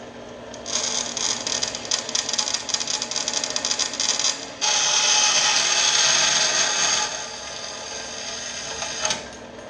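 Klutch 4x6 metal-cutting bandsaw, set upright, running while a slot is cut into a small piece of its guard. The cut is rough and rapidly ticking for the first few seconds, then louder and steadier from about halfway, and it stops shortly before the end. The blade is coarser than the 24-teeth-per-inch blade that would work better for this cut.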